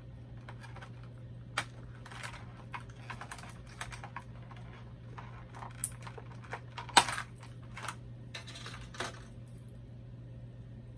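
Small plastic doll accessories and their packaging being handled: irregular clicks, taps and crinkles, with one sharp clack about seven seconds in. A steady low hum runs underneath.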